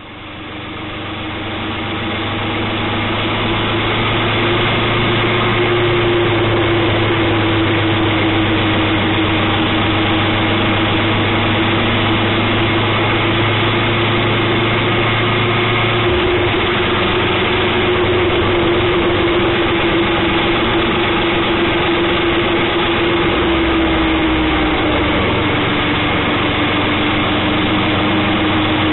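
Motorcycle engine running steadily at cruising speed, with wind and road noise, through a dashcam microphone that cuts off the highs. The sound fades in over the first few seconds, and a low hum drops out about halfway through.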